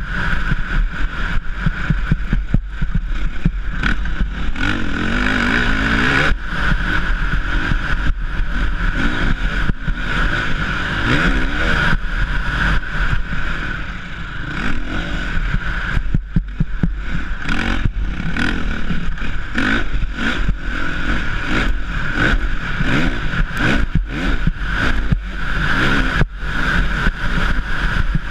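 Motocross bike's engine revving up and down as the rider accelerates and shifts, with heavy wind buffeting on the microphone. The throttle eases off briefly about halfway through.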